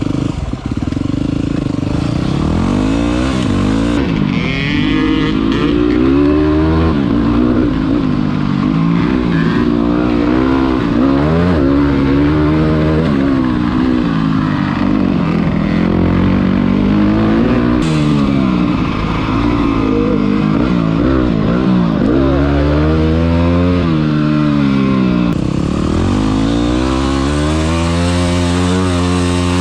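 Motorcycle engine being ridden hard, its pitch climbing and dropping again and again as it accelerates and backs off.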